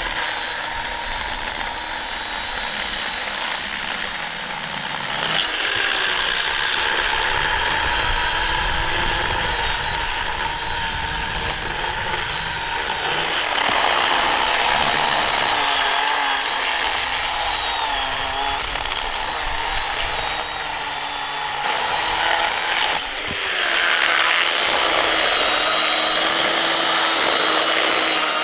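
Makita chainsaw cutting firewood, running steadily with its pitch wavering up and down as the load on the chain changes.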